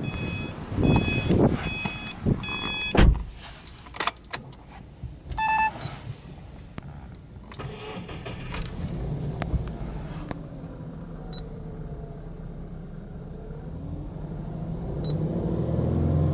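Subaru Impreza S-GT's warning chime beeping repeatedly and a door thudding shut, then clicks from the cabin before its turbocharged flat-four boxer engine starts. The engine settles into a steady run and rises in revs near the end, with the tachometer near 2,500–3,000 rpm.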